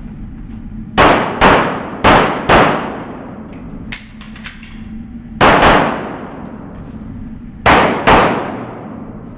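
Pistol shots fired in quick pairs about half a second apart, four pairs in all with a pause of a few seconds after the second pair, each shot echoing through an indoor range.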